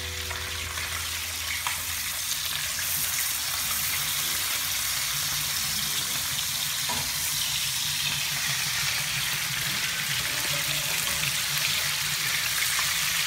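Sea trout fillets sizzling in hot oil in a nonstick frying pan, a steady crackling hiss that grows a little louder a couple of seconds in.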